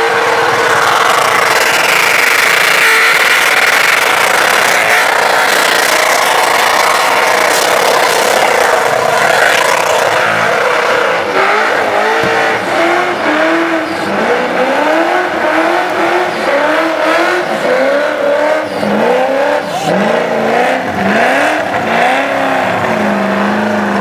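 Holden Commodore doing a burnout with its accelerator stuck on: the engine is held at high revs and the tyres spin with a steady screech. From about halfway the engine note rises and falls over and over.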